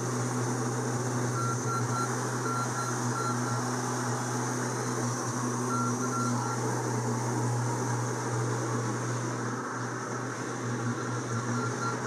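Diesel engine of a tracked skid steer running steadily under load as it lifts big square hay bales off a flatbed trailer, with a high beeping that comes and goes.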